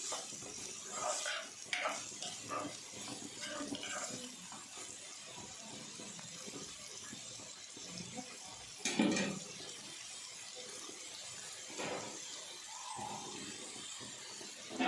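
Chopped onions frying in oil in a kadai with a steady sizzle, while a spoon stirs and clicks against the pan, busiest in the first few seconds. Two louder knocks of the spoon or pan come in the second half.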